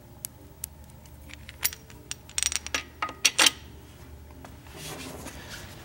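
Sharp metal clicks and clinks of a main bearing cap and its bolts being set onto a Suzuki Samurai 1.3L engine block, with scattered single clicks and a loudest cluster of clinks from about two and a half to three and a half seconds in.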